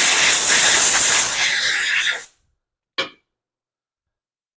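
Compressed-air nozzle blowing dust off a lawnmower engine's air filter: one loud steady hiss of about two seconds that cuts off, then a brief second burst a little later.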